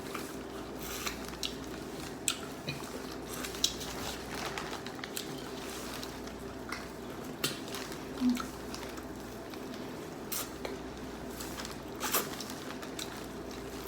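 Wet squishing and scattered sharp clicks and crackles of seafood boil being eaten by hand: shells pulled and cracked in buttery sauce, with an occasional tap of shell or utensil on a dish. A faint steady hum runs underneath.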